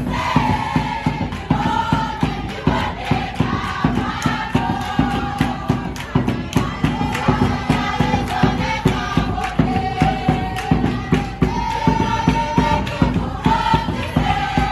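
A large group of school learners singing together in unison, keeping time with hand clapping and a steady bass drum beat.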